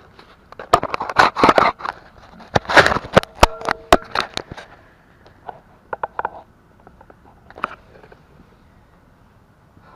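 Knocks, clicks and scraping of the batteries being handled and set back into a mobility scooter's battery compartment. The noise is dense in the first half, with a brief squeak, then thins to a few scattered clicks after about five seconds.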